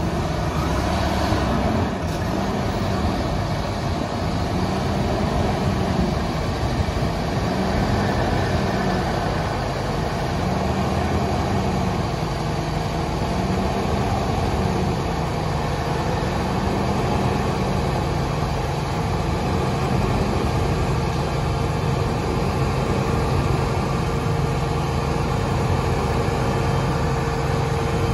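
Fendt 942 Vario tractor's diesel engine running steadily as it pulls a silage trailer over the silage clamp, its note rising and falling slowly.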